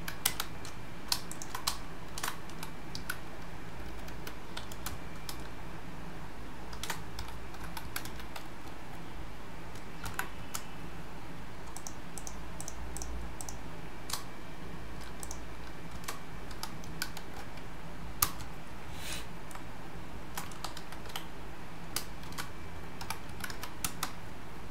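Computer keyboard keystrokes: single clicks at irregular intervals, with a quick run of several about halfway through, over a faint steady low hum.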